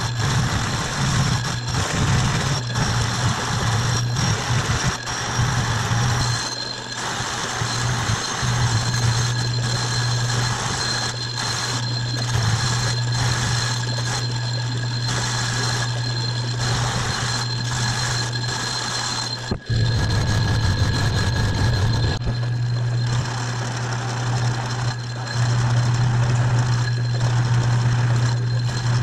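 Metal lathe running and cutting a disc held in its chuck: a steady motor hum with cutting hiss and a thin high squeal from the tool. The sound drops out briefly about two-thirds through, then resumes.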